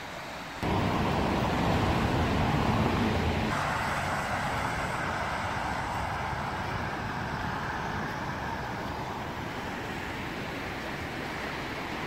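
Road traffic on a wet street: tyre hiss on wet asphalt. It starts abruptly about half a second in and slowly eases off.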